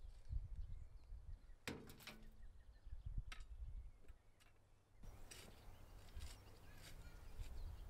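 Shovel digging into a heap of earth: a few short, sharp scrapes and knocks spaced apart, faint, over a low rumble.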